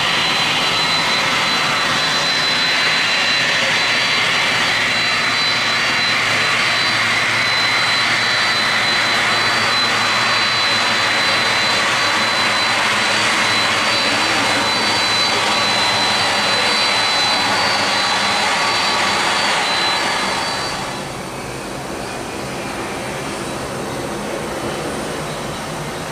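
Boeing 767-300ER jet engines running at taxi power: a steady, loud engine noise with a high, even whine on one note. About twenty seconds in it drops noticeably quieter and the whine fades.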